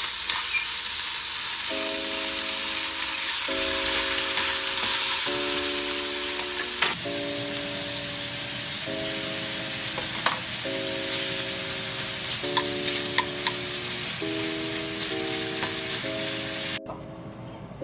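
Pork belly frying in a stainless steel pan: a steady sizzle with metal utensils clicking against the pan now and then as the pieces are turned. The sizzle cuts off suddenly near the end.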